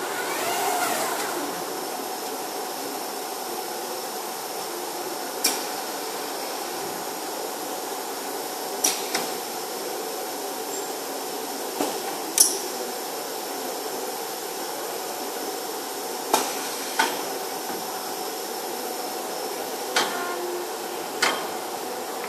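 Automated aluminium profile machining centre running with a steady hum. A gliding whine rises and falls in the first second or so. Sharp metallic clacks come every few seconds as the pneumatic gripper and clamps work.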